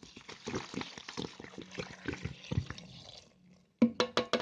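Water being poured into a cooking pot of dried herbs for about three seconds, followed by a few sharp clinks near the end.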